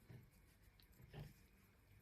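Near silence: room tone, with one faint short low sound about a second in.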